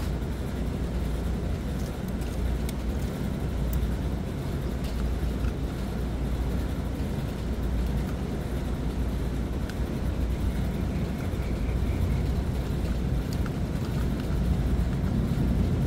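Steady low outdoor rumble with a few faint light clicks as wiring and a contactor are handled in an electrical control panel.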